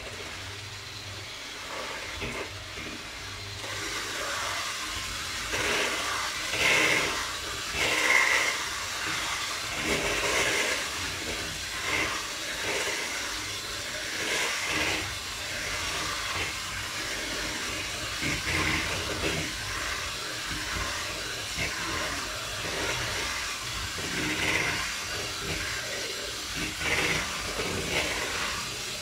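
Hand-held electric mixer running, its beaters whirring through thick chocolate cake batter in a plastic bowl as crushed Oreo cookies are mixed in. Louder scraping comes and goes irregularly as the beaters work through the batter.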